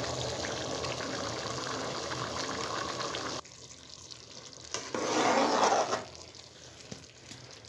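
Pot of rice and peas boiling steadily, with most of the water cooked off, the bubbling cutting off suddenly a little over three seconds in. About five seconds in, a steel ladle stirs through the wet rice for about a second.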